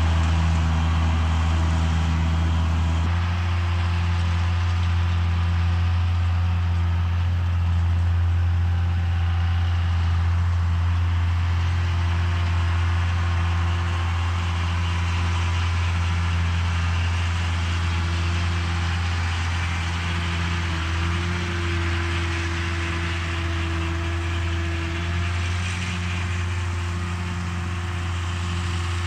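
John Deere 7510 tractor's diesel engine running steadily while pulling a John Deere 450M round baler through the field, with the baler's working clatter mixed in. The engine note shifts slightly about three seconds in.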